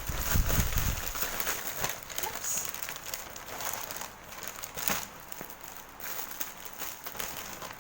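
Plastic packaging crinkling and rustling as a parcel is handled and unwrapped, with a few dull handling bumps in the first second.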